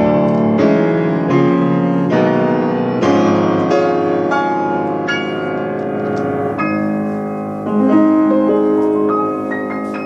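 Steinway D-274 concert grand piano played: full chords struck about once a second, each ringing on and fading, the loudest about eight seconds in, followed by a few higher notes near the end.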